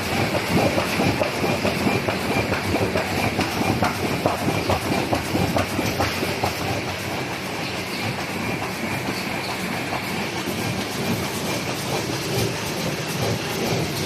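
Heavy-duty high-speed laminating machine with its automatic paper feeder running: a steady, dense mechanical clatter with a faint high whine.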